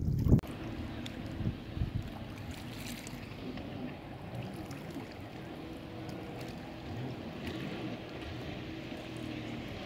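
Jet ski engine running steadily, with wind on the microphone and a few thumps in the first two seconds.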